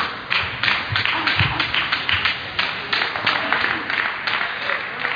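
Table tennis rally: the celluloid ball clicking off the bats and the table in a quick, even run of sharp taps, about three or four a second.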